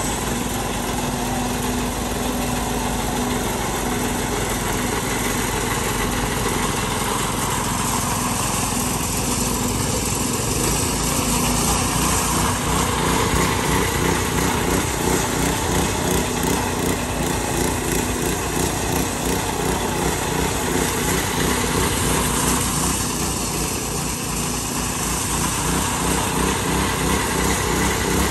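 Small petrol engine of a walk-behind power trowel running steadily under load while its rotating blades float a wet concrete slab.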